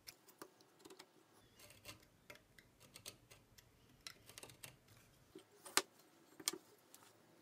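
Faint small clicks and scratches of a knife being drawn along a combination square to score a marking line across a birch board, with two sharper knocks a little before the end.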